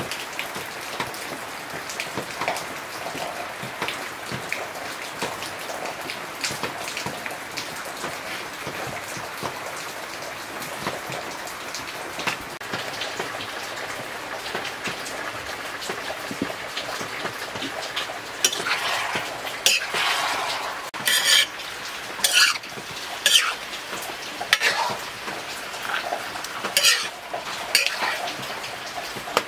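Pork pieces frying in a black iron kadai over a wood fire, a steady crackling hiss. From about two-thirds of the way through, a metal spoon scrapes and clinks against the pan as the meat is stirred.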